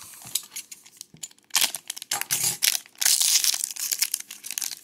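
Foil wrapper of a Topps baseball card pack crinkling as it is handled and pulled at, in two loud stretches of rustling about one and a half and three seconds in.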